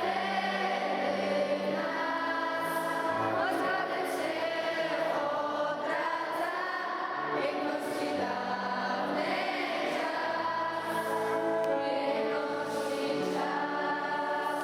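Slow choral music: long held chords over a sustained bass note, changing every few seconds.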